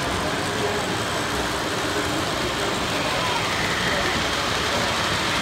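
Model train running past on the track: a steady rolling rumble and rattle of the locomotive and loaded log cars on the rails. Faint voices murmur in the background.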